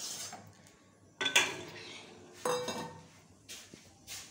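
Steel cookware clanking: a metal pan and utensils knocking against each other and the steel stove top, four separate clanks, the loudest a little over a second in and one about halfway through ringing briefly.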